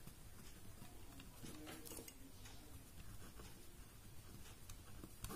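Faint scratching of a ballpoint pen writing on paper, with a few light ticks of the pen strokes.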